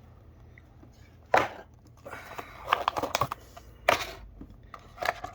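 Hands opening a small cardboard diecast box and pulling out the model's packaging: a sharp click, scraping and rustling with small clicks, then another sharp click.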